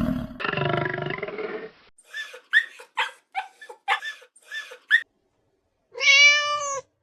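Cat meowing: a rougher call in the first couple of seconds, then a run of short, high mews, and one clear, drawn-out meow near the end.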